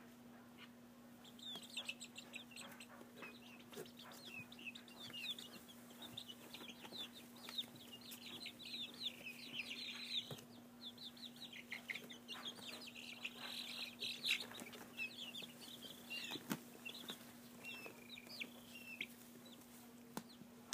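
Chicken sounds: many short, high, falling chirps in quick clusters, over a steady low hum.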